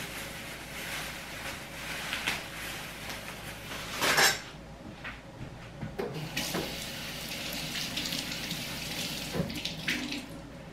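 Kitchen tap running as a bunch of cilantro is rinsed under it, with a brief louder burst about four seconds in.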